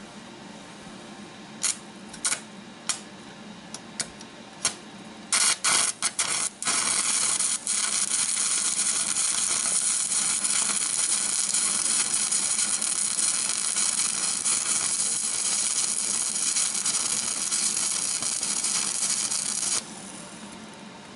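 Electric arc welding: the arc is struck briefly several times, then held as one steady, loud hiss for about thirteen seconds while a weld is run on a steel caster bracket, cutting off suddenly near the end.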